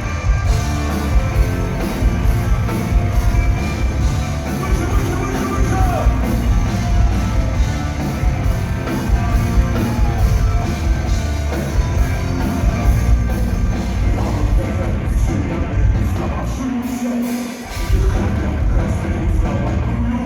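Heavy rock music from a band with loud, driving drums, dropping out briefly near the end.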